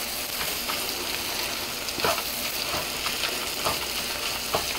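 Crumbled rui fish roe frying in spiced oil in a nonstick pan: a steady sizzle, with short scrapes and taps of a wooden spatula stirring it about once a second.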